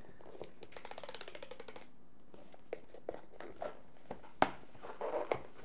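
Cardboard product box being opened by hand: a rapid fine crackle of the seal tab tearing for about a second and a half, then scattered clicks and taps as the box flaps are handled, one sharp click about four and a half seconds in.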